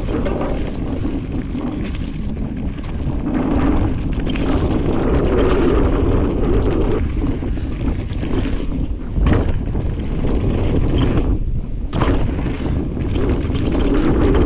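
Wind buffeting the action camera's microphone over the rolling rumble and rattle of a mountain bike's tyres and frame on a leaf-covered dirt trail at speed, with a sharp knock about nine seconds in.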